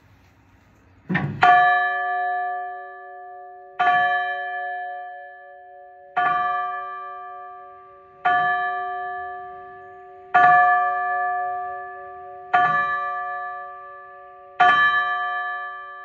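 Rope-rung church bell tolling slowly, seven strokes about two seconds apart, each ringing on and fading into the next; the first stroke lands as a quick double hit. A memorial toll, one stroke for each year of the deceased's life.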